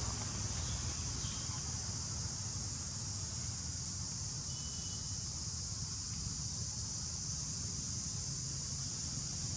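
A steady, high-pitched drone of forest insects, over a low background rumble, with a short faint chirp about halfway through.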